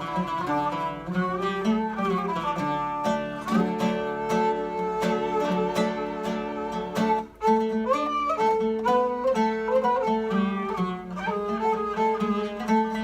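Traditional Turkish makam music of the Ottoman court played on a plucked string instrument and a bowed string instrument: a quick run of plucked notes under held, sliding bowed notes.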